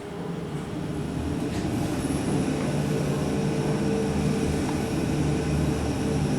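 KONE EcoDisc passenger lift travelling, heard from inside the car as a steady hum and rumble with a few held low tones. It builds up about half a second in as the car gets under way.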